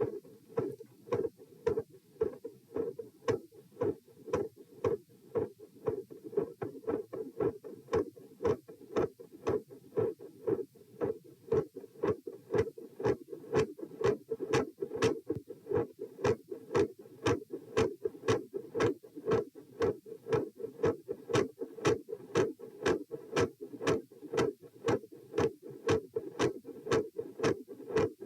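Human heartbeat heard through a stethoscope on the chest: a steady, regular run of lub-dub beats. The second heart sound is consistently loud and the first heart sound varies in strength.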